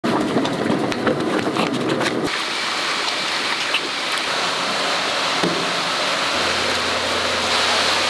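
Running and splashing water at an eel farm, a steady hiss that changes character between clips; a steady low hum joins about six seconds in.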